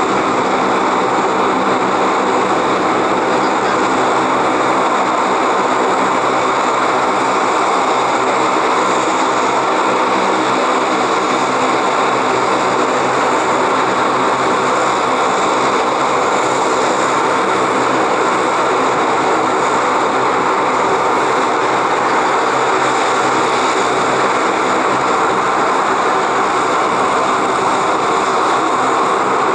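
Aircraft engines running steadily and loudly at close range, a constant drone with several steady tones on top and no rise or fall in level.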